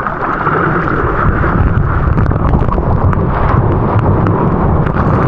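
Loud, steady rush of wind and water buffeting an action-camera microphone in the surf.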